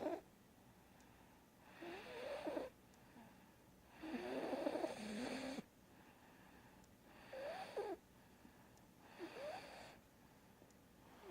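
Snoring: four separate snores with a wavering pitch, two to three seconds apart. The longest and loudest comes about four seconds in and lasts over a second.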